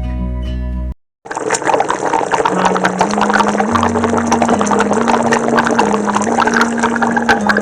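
Acoustic guitar music ends about a second in, with a brief silent gap. A different soundtrack then starts: a dense hissing, crackling noise over a simple stepping low bass line.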